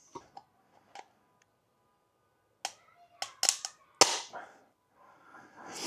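Short sharp clicks and snaps of a 3D-printed plastic nozzle being flexed and squeezed by hand to test its friction-welded seam, the loudest about four seconds in.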